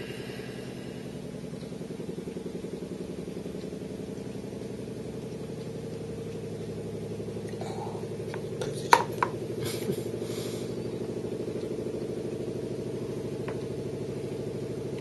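Wooden blocks knocking against a tabletop and a foam cup: several sharp knocks about nine to ten seconds in, the loudest near nine seconds. A steady low machine-like hum runs underneath throughout.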